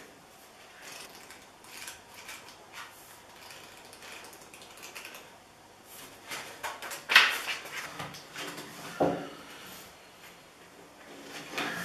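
Pages of a paperback book being flipped and handled: scattered paper rustles and small clicks, with a louder flurry of page-turning about seven seconds in.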